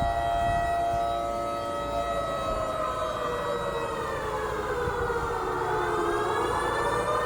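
Outdoor warning siren, of the air-raid type, sounding the nightly curfew: several tones held together at a steady level. The pitch dips about four seconds in and climbs back near the end.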